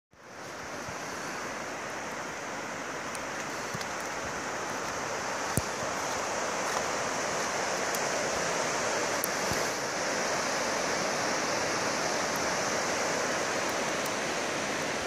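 Swat River rushing over a rocky bed: a steady rush of water, with a few faint clicks and one sharp click about five and a half seconds in.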